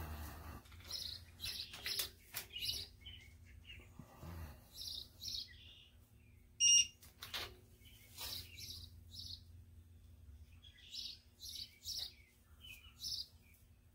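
Small birds chirping repeatedly in short runs of notes. About seven seconds in comes a single short electronic beep from a digital torque wrench, the signal that a cylinder-head bolt has reached its set torque.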